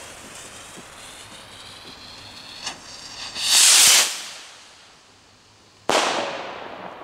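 Firework rocket in flight: its hiss fades as it climbs, a loud rushing hiss comes about three and a half seconds in, and it bursts with one sharp bang just before six seconds, echoing away.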